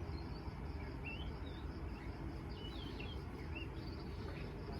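A bird chirping every so often in short, wavering calls, over a steady high insect trill.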